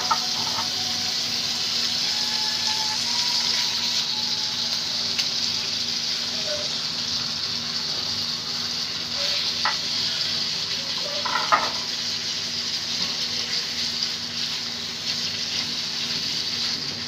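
Spiced potato curry sizzling steadily in a frying pan as raw fish steaks are laid into it. A couple of short light knocks come about ten and eleven and a half seconds in.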